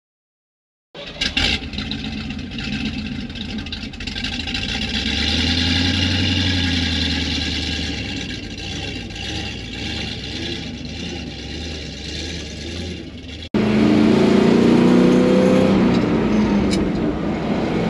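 An old flatbed truck's engine running, its revs rising briefly and easing off again. After a sudden cut about thirteen and a half seconds in, louder engine and road noise from a moving vehicle, the engine note climbing as it accelerates.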